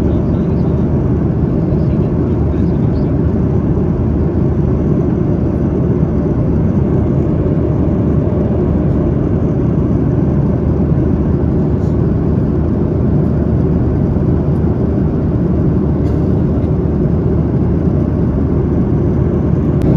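Steady cabin noise of a Boeing 737-800 in flight: the low, even roar of its jet engines and airflow over the fuselage, unchanging throughout.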